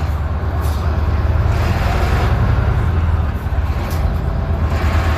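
Large road vehicle's engine running with a steady deep rumble and road noise.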